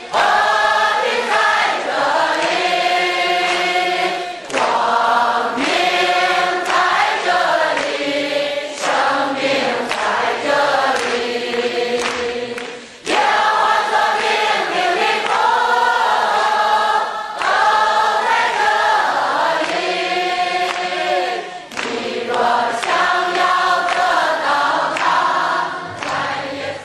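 A congregation singing a Chinese worship song together as a group, in sung phrases with short breaths about four, thirteen and twenty-two seconds in, with hands clapping along.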